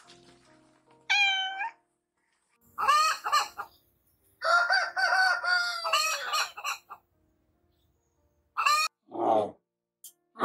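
A cat meows, then a rooster crows: one long crow of about two seconds that falls in pitch at the end. Short animal calls follow near the end.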